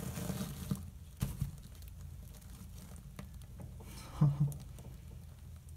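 Wood shavings rustling and crunching as a gloved hand rolls a curled-up hedgehog through its cage bedding, with a few sharp clicks about a second in and a short, louder low sound just after four seconds.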